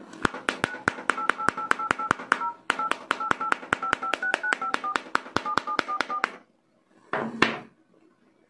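Smartphone dialer keypad tones as digits are tapped in quickly, about five presses a second for some six seconds, each a short two-tone DTMF beep from the phone's speaker. About a second after the beeps stop comes a brief handling knock.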